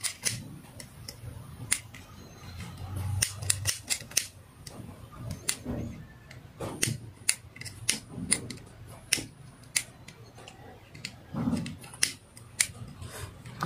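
Sharp, irregular clicks of a small plastic lighter being struck over and over until it lights, with faint handling noise between the strikes.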